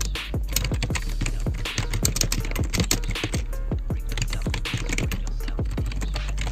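Rapid, irregular clicking like keyboard typing, several clicks a second, mixed with music over a steady low hum.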